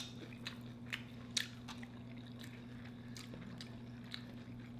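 Close-miked chewing and biting of sauce-coated fried chicken: soft wet mouth sounds with a few sharp clicks in the first two seconds, over a steady low hum.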